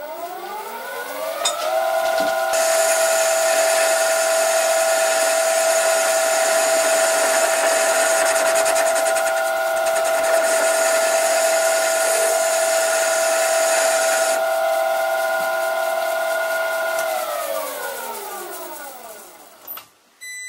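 Old metal lathe, driven through a variable frequency drive, spinning up with a rising whine, then running steadily while a tool bit takes a taper cut on hard-to-cut steel with a harsh hissing scrape. The cutting noise stops about two-thirds of the way through, and the spindle whine falls away as the lathe winds down near the end.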